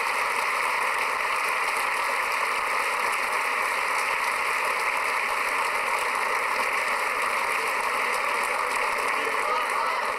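A large outdoor crowd applauding steadily.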